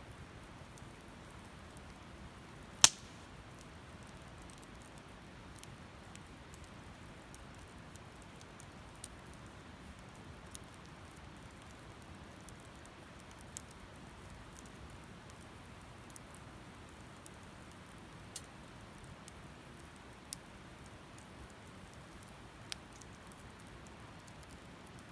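Wood fire burning with a faint steady hiss and scattered sharp crackles and pops, one much louder snap about three seconds in.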